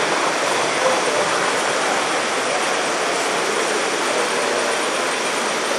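Steady rushing background noise, even throughout with no distinct knocks or tones.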